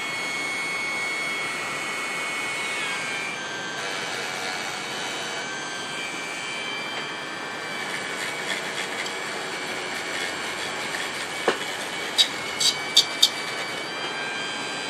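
A high-speed handheld rotary tool running with a steady high whine as a small white bit polishes the copper contacts of a blower switch; the pitch steps down a few times as the bit is pressed onto the metal. A few sharp ticks come near the end.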